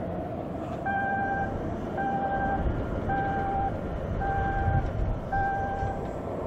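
A vehicle's reversing alarm beeps five times, about once a second, over the steady low rumble of an Airbus A330 jet airliner on final approach.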